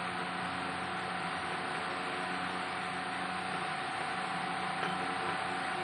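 Steady mechanical hum with a constant whine over a soft hiss, unchanging throughout.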